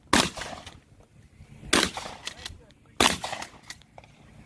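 Three rifle shots fired at a slow, deliberate pace, about a second and a half apart, each trailing off briefly.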